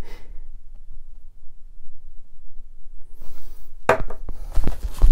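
Quiet room tone for the first few seconds, then a few sharp knocks and clatter from tools being handled on a workbench. The drill is not running.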